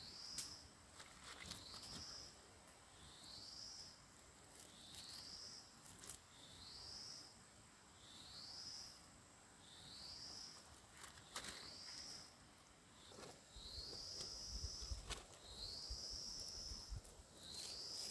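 A wild creature's high, rising call repeated about once every second and a half, the later calls longer and flatter, over a steady thin high hum, with a few sharp clicks and snaps.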